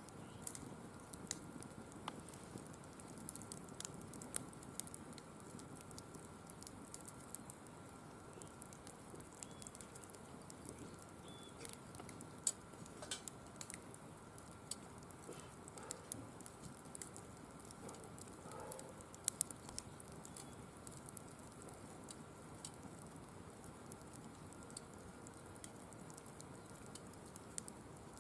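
Firewood burning with a steady, irregular crackle of small snaps, and a few louder pops about halfway through.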